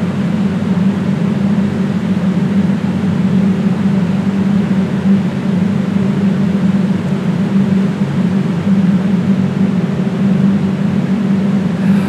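Loud, steady droning hum with a constant low tone and a hiss over it, unchanging throughout.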